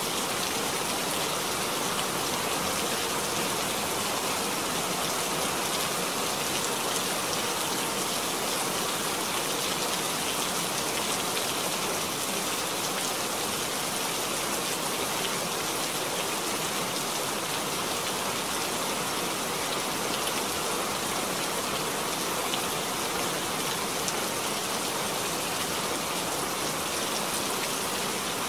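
Steady rain falling, an even hiss with faint individual drop ticks, unchanging throughout.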